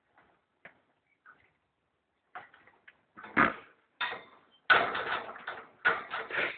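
A run of clattering knocks and rustles, faint at first and much louder from about halfway through.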